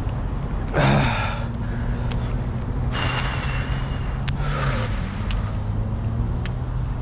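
A person breathing hard while jogging, heard close up through a chest-mounted camera. There are three loud, rough breaths: about a second in, at three seconds, and around four and a half seconds. Under them runs a steady low rumble.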